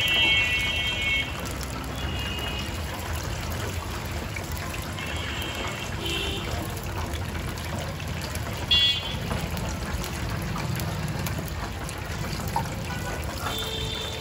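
Steady sizzle of chicken deep-frying in oil, with several short high-pitched horn toots from street traffic, the loudest just before the middle.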